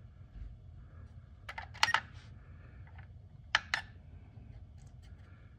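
Push buttons on a SkyRC MC3000 battery charger clicking as the program settings are stepped through: two quick double clicks, then a few fainter clicks near the end.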